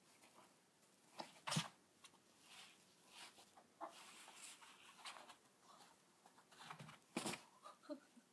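Faint rustling and soft knocks of a lop-eared pet rabbit hopping about on cloth sheets over the floor, with two sharper knocks about one and a half seconds in and near seven seconds.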